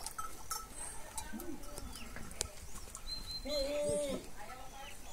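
Goats bleating: a shorter call about a second and a half in, and a louder, drawn-out bleat about three and a half seconds in. Small birds chirp now and then.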